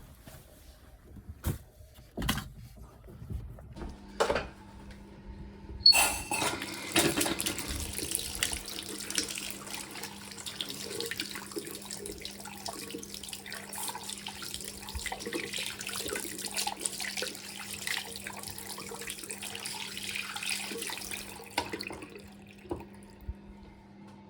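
Bathroom basin tap turned on and running into the basin after a few knocks, then shut off sharply a few seconds before the end. The tap has a freshly fitted washer, and it stops fully when turned off.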